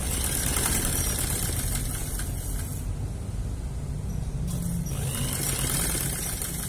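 Sewing machine running steadily, its needle stitching a seam through dress fabric and facing.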